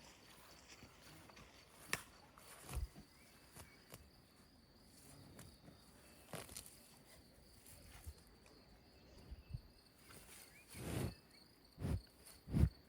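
Quiet rural outdoor ambience with insects chirping faintly in a steady, high, pulsing trill, and scattered light clicks. A few louder low thumps come near the end.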